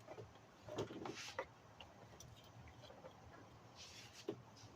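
Faint clicks and short rattles of parts being handled while reassembling an engine bay, with a small cluster about a second in.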